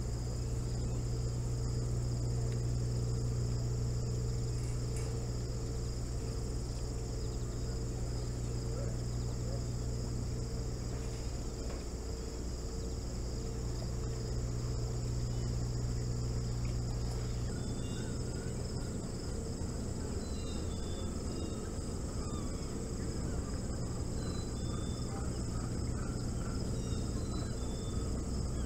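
Late-summer insect chorus: crickets or katydids trilling steadily at a high pitch, over a low steady hum that thins out about two-thirds of the way through. Faint short high chirps come in during the last third.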